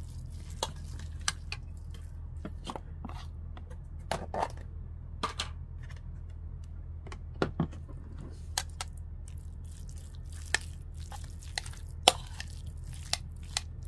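Spoon scraping and clicking against a bowl in irregular taps as rice is mixed with margarine and seasoning sauce, over a steady low hum.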